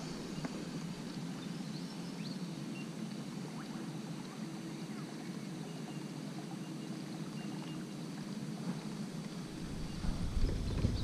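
Quiet outdoor ambience from a canoe on a river, with scattered faint clicks and a few brief high chirps. A low rumble builds near the end.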